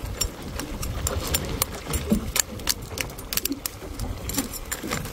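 A metal ladle clinking and scraping against a cooking pot of shrimp and crab as it is stirred, in irregular sharp clicks, over a low wind rumble on the microphone.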